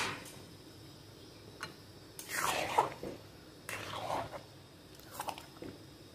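Steel spoon stirring a thick, wet mashed-mango and semolina mixture in a steel pan: two longer squelching strokes in the middle, with a few light clicks of the spoon against the pan.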